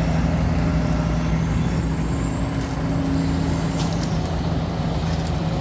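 Excavator's diesel engine running steadily while digging, with a couple of faint knocks about halfway through.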